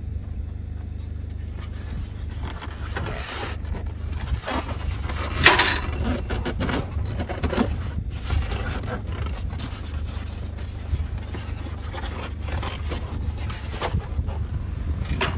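Styrofoam packing insert scraping and rubbing against the table saw as it is worked loose and lifted off, in irregular scrapes with the loudest about five seconds in, over a steady low rumble.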